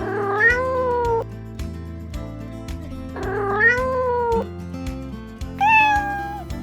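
Domestic cat meowing three times: two drawn-out meows, then a shorter, higher-pitched one near the end, over background music.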